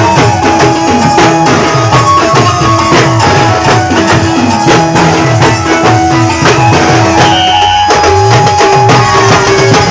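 Loud Indian folk band music with fast, dense drumming and a long held melody note over gliding bass; the bass drops out for a moment near the end.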